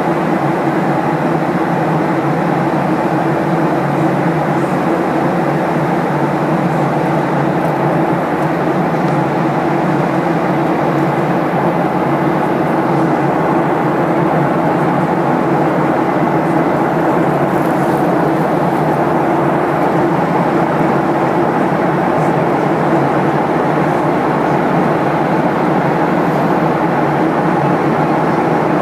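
Steady cabin noise of a Boeing 737-800 airliner in flight: the rush of airflow and the drone of its CFM56 turbofan engines, even and unchanging, with a faint steady hum under it.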